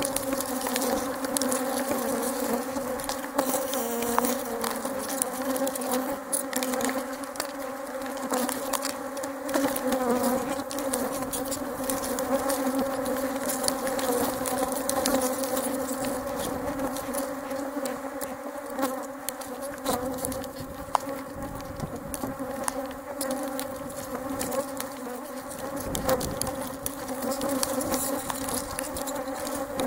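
A swarm of honey bees buzzing close around the microphone as they fly about their hives: a steady hum, with scattered light ticks over it.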